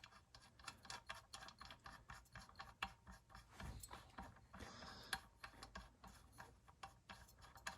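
Faint, irregular small clicks and light rubbing as a Husqvarna 55 chainsaw's crankshaft and timing wheel are turned by hand to bring the piston to top dead center.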